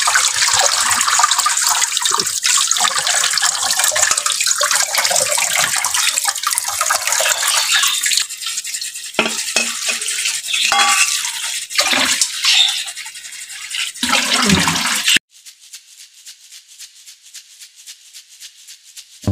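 Water running and splashing. After about eight seconds it breaks into separate splashes and knocks, then drops to a faint patter for the last four seconds.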